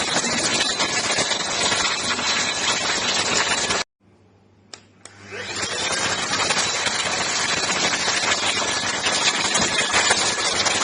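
Motor of an ENOLUX ST7000 cordless handheld vacuum cleaner running with a steady airy whine, cutting out suddenly about four seconds in. Two clicks follow, then the motor spins back up over about a second and runs steadily again.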